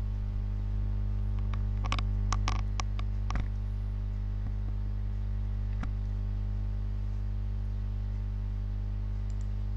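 Steady electrical mains hum with a buzzy stack of overtones, with a few short clicks between about two and three and a half seconds in and one more near six seconds.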